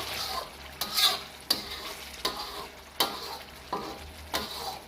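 A spatula scrapes and stirs lamb karahi in the pan, a stroke about every 0.7 seconds, over a steady sizzle. The yogurt sauce is frying down thick, its water cooked off.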